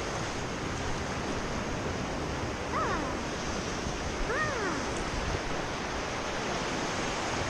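Ocean surf washing on the shore, a steady rush, with two short cries that slide down in pitch about three and four and a half seconds in.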